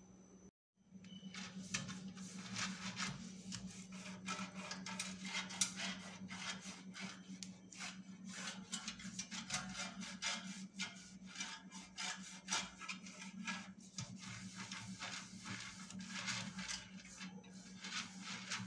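Silicone pastry brush rubbing and dabbing oil over the nonstick perforated basket of an air fryer: a dense run of quick, irregular soft scrapes and taps, with a steady low hum underneath.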